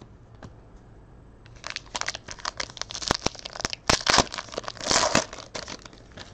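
Crinkly packaging being handled and crumpled, a dense run of irregular crackles starting about a second and a half in and stopping shortly before the end, loudest around the middle.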